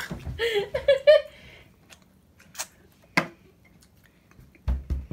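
A man making short strained gagging groans just after swallowing canned octopus juice. They are followed by a couple of faint clicks and, near the end, a few low thumps.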